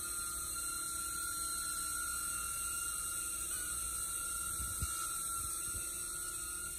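DJI Neo mini drone hovering, its small ducted propellers giving a steady high whine over a lower hum, the pitch wavering briefly about halfway through.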